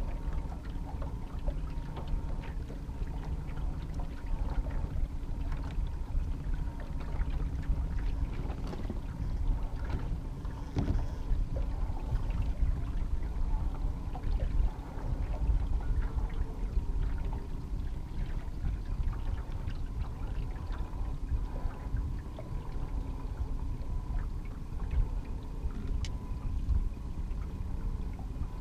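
Small aluminium fishing boat's motor running steadily while trolling: a low rumble with a faint steady hum on top, and a few small clicks of handling.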